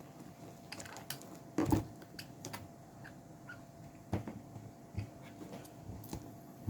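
Lemons being pushed and packed into a plastic jar: scattered soft knocks and clicks of handling, the loudest a thump a little under two seconds in.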